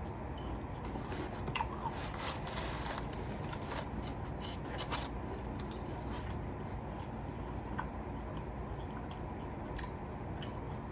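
A person biting into and chewing Dave's Hot Chicken fried chicken, with scattered crunching clicks that are thickest a couple of seconds in, over a steady low background hum.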